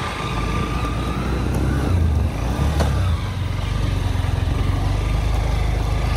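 Motorcycle engine running steadily as the bike rides up a rough dirt hill track.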